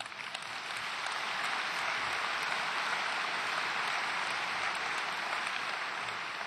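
Large audience applauding in a big hall, swelling over the first second or so, holding steady, then thinning out near the end.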